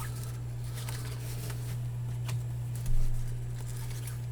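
1991 Upper Deck baseball cards being handled and flipped through by hand: faint clicks and slides of card stock, with a soft thump about three seconds in, over a steady low hum.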